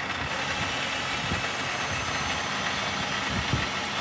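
Scania R580's V8 diesel engine idling steadily.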